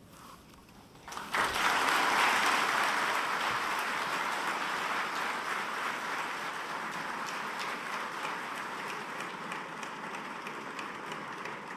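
A large seated audience applauding, breaking out suddenly about a second in after a brief hush and slowly dying down.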